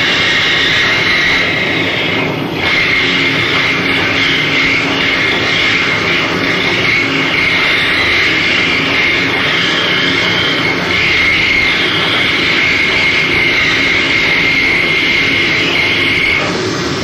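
Live harsh noise performance: a dense, continuous wall of loud noise with a steady high whine running through it, briefly dipping about two seconds in.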